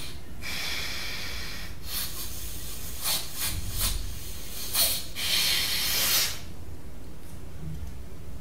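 Hissing breaths drawn and blown through one nostril while the other is pressed shut, as in alternate-nostril yoga breathing (pranayama). A long breath comes early, a few short sharp sniffs follow around three to five seconds in, then another long breath.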